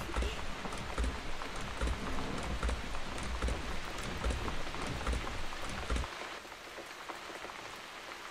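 Heavy rain falling, a steady hiss with fine pattering drops. Under it a low, uneven thudding runs until about six seconds in and then stops.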